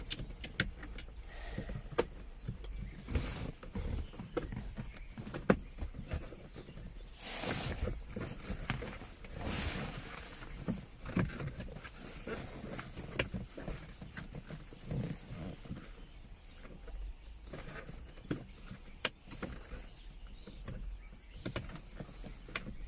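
Hands working a USB cable through a tight gap in plastic car centre-console trim: scattered clicks, knocks, scrapes and rustling, with a couple of longer scraping bursts.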